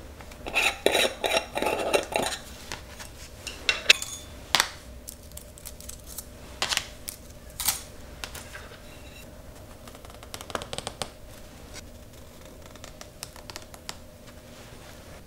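Small round metal tin being opened and handled: a quick cluster of light metallic clinks and rattles in the first couple of seconds, then several separate sharp clicks, thinning out after about eleven seconds.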